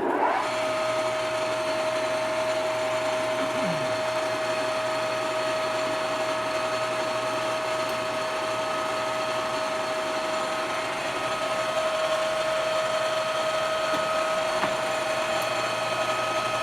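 Nardini Mascote MS1640 engine lathe starting and running its spindle at its top speed of 1600 RPM: it comes up to speed at once and then runs with a steady high whine from the headstock.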